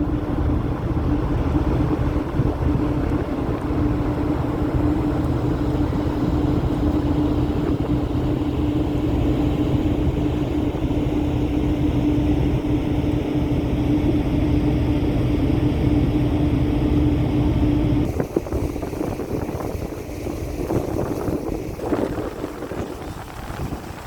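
Steady low drone of a ferry underway, heard aboard, with a constant mid-pitched hum over a deep rumble. About eighteen seconds in the hum stops and the sound turns quieter and more uneven.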